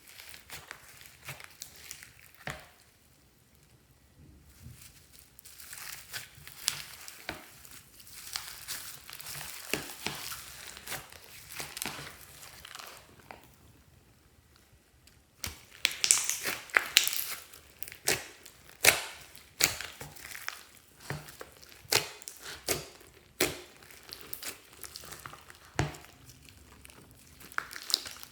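Glossy slime being squished and stretched, making quick crackling clicks and pops. It goes quieter briefly about four seconds in and again around fourteen seconds, then louder, denser crackling follows from about fifteen seconds on.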